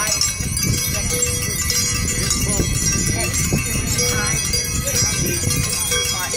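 Many bells ringing at once in an ongoing peal, with people's voices talking among them.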